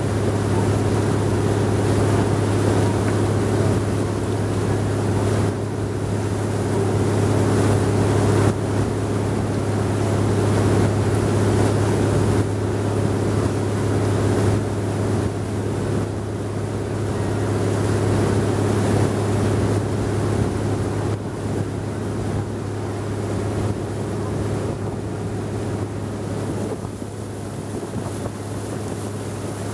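Noisy wooden river boat's engine running steadily under way, with a rush of water and wind over it; slightly quieter near the end.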